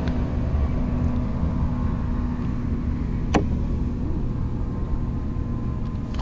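A boat's motor running steadily with a low hum, and a single sharp click about halfway through.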